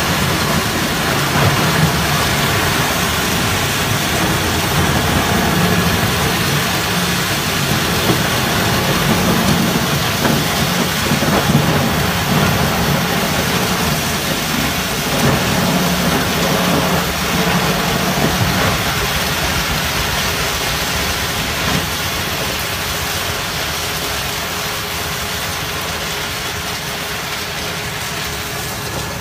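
Wood crusher running steadily while chipping wooden pallets, with a continuous hiss of wood chips pouring off its discharge conveyor onto a pile.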